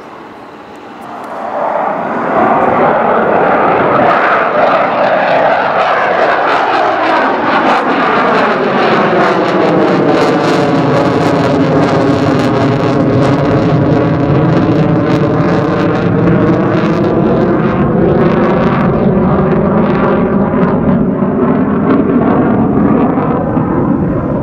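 Boeing F/A-18F Super Hornet's twin jet engines at high power overhead. The sound swells to full loudness about two seconds in, then holds, with a whooshing sweep that falls in pitch and rises again and a ragged crackle.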